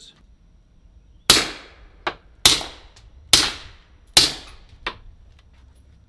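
Four suppressed shots from a .45 ACP 1911 pistol fitted with a Hybrid 46 suppressor, firing subsonic 230 grain full metal jacket rounds, about a second apart, each a sharp report that trails off in echo. A fainter sharp crack follows the first and last shots by a little over half a second.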